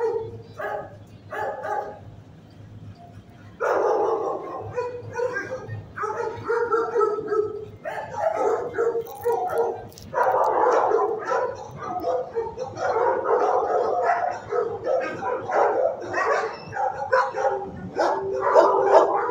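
Shelter dogs barking in their kennels, with separate barks for the first few seconds and then a dense, overlapping chorus from about four seconds in.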